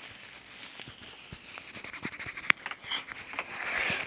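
Handling noise on the camera's own microphone: rustling with scattered sharp clicks and taps, as the camera is rubbed and handled.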